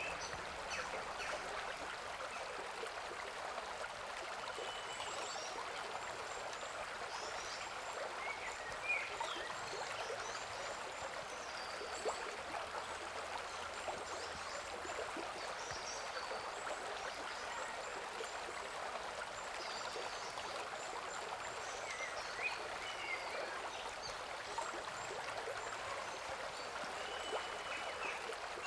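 A river or stream babbling and splashing steadily. Short bird chirps and whistles come and go above the water throughout.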